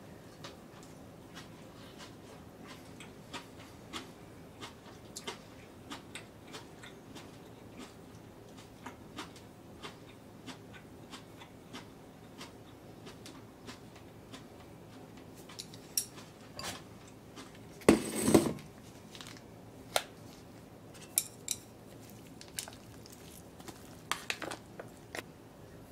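Chopsticks and dishes clicking and tapping lightly, with a louder clatter about 18 seconds in, like a bowl set down on the counter. Near the end there is a quick run of sharper clicks and crinkles as food is tipped from a plastic pouch into a ceramic bowl.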